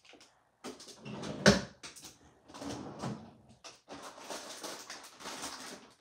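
Kitchen clatter of things being fetched and handled, with one sharp knock about a second and a half in, the loudest sound, then rustling and smaller knocks.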